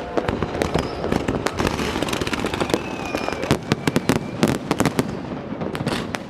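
Fireworks going off thick and fast: many sharp bangs and crackles overlapping with no pause. A thin whistle can be heard faintly through the middle.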